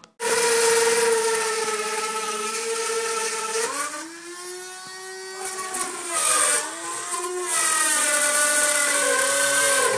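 Small corded rotary tool whining at high speed as it cuts a hole into a wall. It starts abruptly, its pitch drops about four seconds in as the bit bears into the wall, wavers, then climbs again toward the end, with a hiss of cutting on top.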